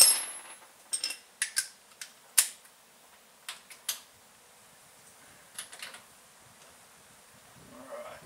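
Sharp metallic clicks, single and in pairs, as a socket wrench works the bottom drain plug of a 4x4's rear differential loose. The loudest click comes right at the start, and they die away after about six seconds.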